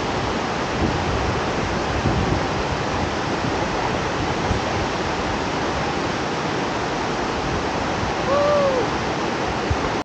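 Steady rushing of a fast river's rapids and a waterfall, an even noise of water without a break. A little after eight seconds in, a short pitched tone rises and falls once over it.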